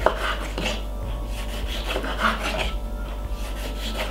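Kitchen knife slicing through a tomato on a wooden chopping board: a series of irregular soft strokes as the blade cuts and rubs on the wood.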